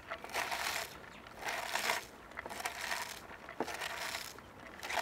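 Shredded raw white cabbage being squeezed and massaged by hand in a wooden bowl, a rustling crunch with each squeeze, several squeezes roughly one a second. The crushing breaks down the cabbage and makes it much softer.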